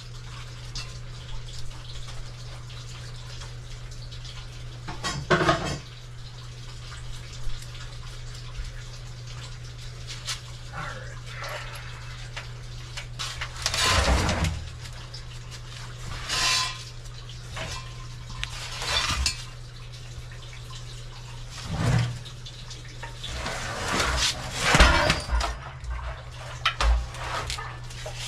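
Intermittent clinks and knocks of pipe and tool handling on a water heater's plumbing, over a steady low hum.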